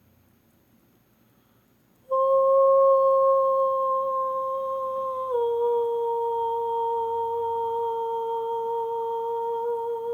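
A voice humming one long held note that starts about two seconds in, drops slightly in pitch about halfway through, and holds steady before stopping abruptly.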